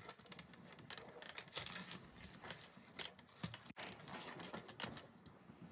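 Faint, irregular crackling and ticking of burning, melting plastic from a charred radio alarm clock inside a microwave.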